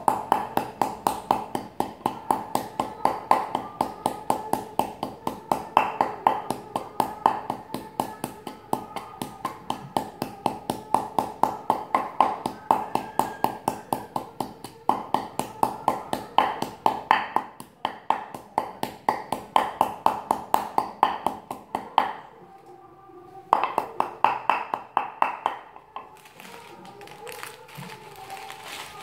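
Wooden pestle pounding in a wooden mortar, quick steady strokes crushing salt and chili into a dip for green mango. The pounding breaks off briefly about three-quarters through, resumes for a few strokes, then stops near the end.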